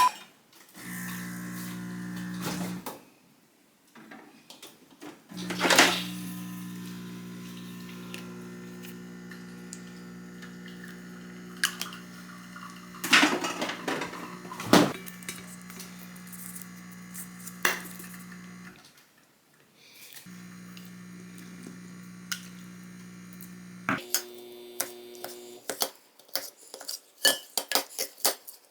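A steady electric appliance hum that cuts out and starts again twice, with sharp clicks and clinks of dishes over it. Near the end the hum shifts higher for a moment, then a run of quick clicks follows.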